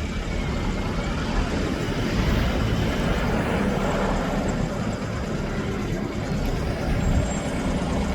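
Diesel engine of a Mack front-loader garbage truck running steadily, a little louder about two to four seconds in.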